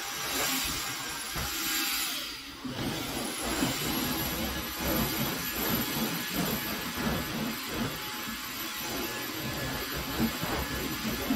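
Vacuum cleaner running steadily, with a brief dip in its sound about two and a half seconds in.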